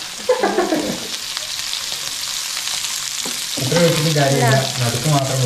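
Sardines shallow-frying in coconut oil in a pan, a steady sizzle with spattering oil. A voice cuts in briefly near the start and again through the second half.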